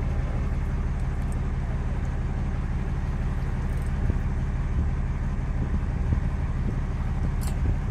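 A boat's engine running with a steady low hum.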